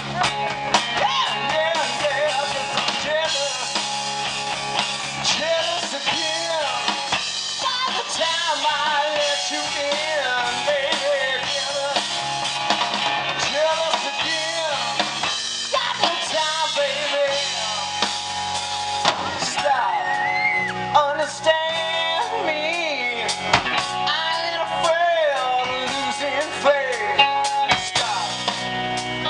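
A live rock band playing: an electric lead guitar with bending, wavering notes over bass guitar and a drum kit.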